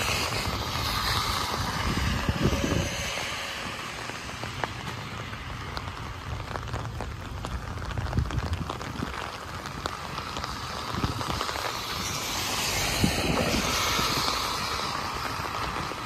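Steady rain with the hiss of car tyres on a wet road, swelling as a car passes near the start and again as another passes near the end.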